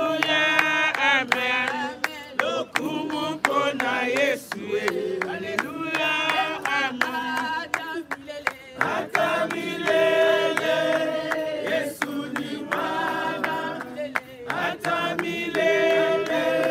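A group of mourners singing together at a graveside, several voices on long wavering notes.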